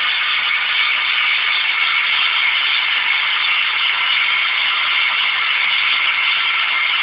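Emco Unimat SL small lathe running steadily: an even, unbroken whirring hiss with a few faint steady tones in it.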